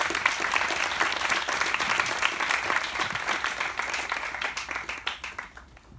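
Audience applause: many people clapping together, dying away near the end.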